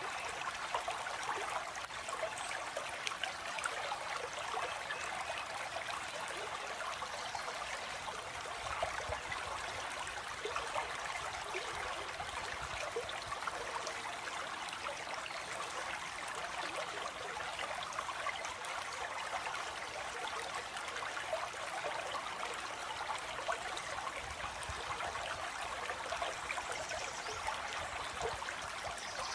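Stream water flowing in a steady, even trickle and babble.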